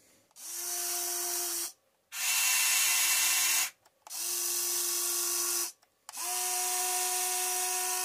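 Huina RC excavator's motors running in four bursts of one to two and a half seconds each as the arm and bucket curl in. Each burst is a steady, high, gear-like whine that starts and stops sharply, and the last is the longest.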